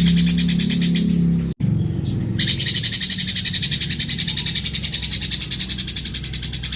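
Lovebird singing a long, unbroken rasping chatter of rapid repeated notes, about a dozen a second, in a rough, harsh voice. The chatter cuts out abruptly for a moment about a second and a half in, then resumes.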